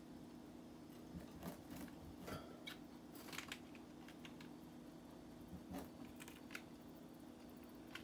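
Faint, irregular clicks and crinkles of canaries pecking at and tearing a lettuce leaf hung in a wire cage, coming in two short clusters, over a low steady hum.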